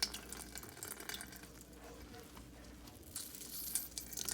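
Whey trickling and dripping out of a cheesecloth of goat's-milk curds into the pan below as the cloth is squeezed; faint, with a few small drips.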